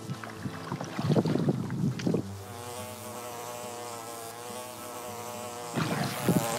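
A fly buzzing close to the microphone, a steady droning hum for several seconds. Before the buzz, about a second in, water splashes and knocks from oars rowing an inflatable dinghy.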